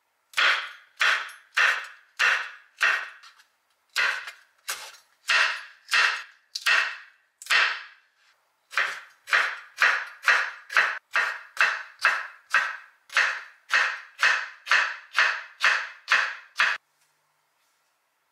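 Kitchen knife slicing chillies on a wooden cutting board: steady chops about one and a half a second, in three runs with short pauses, each stroke a sharp knock that fades quickly. The chopping stops about a second before the end.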